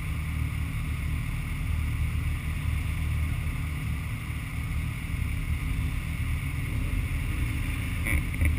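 Motorcycle engines idling in stop-and-go traffic, a low steady rumble, the nearest being the camera bike's Suzuki Hayabusa inline-four. A brief knock near the end.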